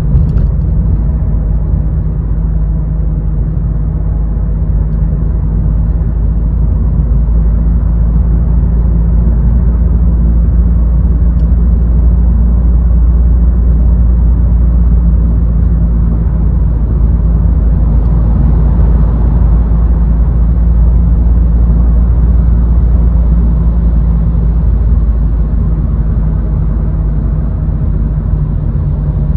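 Car driving in city traffic: a steady low rumble of engine and road noise, a little louder for a stretch through the middle.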